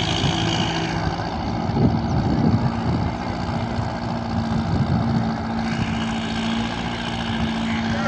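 Farm tractor's diesel engine running steadily under heavy load as it tows a threshing machine through shallow river water, with black exhaust smoke showing it working hard. A steady engine drone with no gear or throttle changes.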